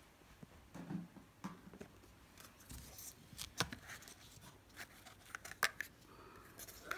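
Clear plastic cups and small containers being handled and set down: scattered light clicks and rustles, with a few sharper clicks in the second half.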